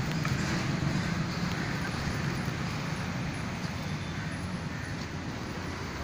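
Steady outdoor background noise with a low rumble, without distinct events.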